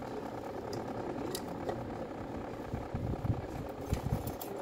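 Light clicks and low knocks from handling the Makita BO5030 orbital sander's motor parts as the field coil is pulled out of its plastic housing, with a few sharp clicks near the end. Under it runs a steady mechanical hum from an unseen source.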